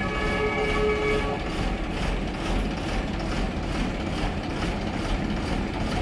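Engine of a truck-mounted crane running steadily under load as it lifts. A steady high tone sounds over it for about the first second and a half.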